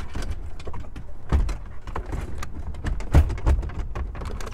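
Clicks, knocks and rattling of a Pioneer double-DIN touchscreen radio and its wiring as it is pushed into a tight dash opening. A few heavier thumps come about a second and a half in and around three seconds in.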